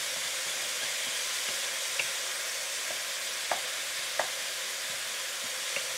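Ground beef with leeks and spices sizzling steadily in a frying pan on high heat, being stirred, with a few short sharp ticks of the utensil against the pan.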